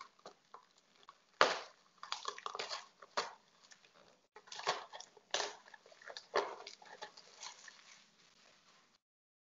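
Plastic instant chow mein packet crinkling and rustling as it is handled, with irregular clicks and knocks; the loudest is a sharp knock about a second and a half in.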